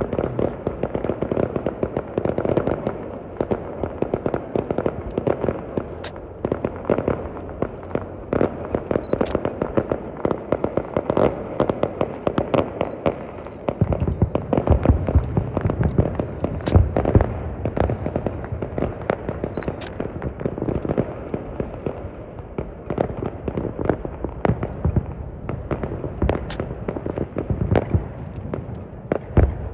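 Fireworks going off: dense, rapid popping and crackling throughout, with deeper booms joining about halfway through.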